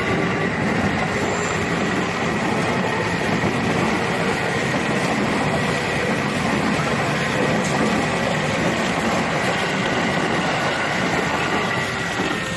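KRL commuter electric train passing close by, a loud steady rumble and clatter of its wheels on the rails. The sound eases a little near the end as the last car clears.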